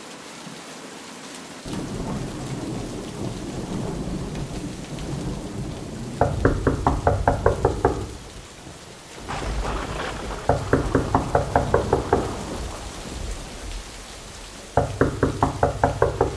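Steady heavy rain with low thunder rumble, broken by three bouts of rapid knocking on a door, about five knocks a second.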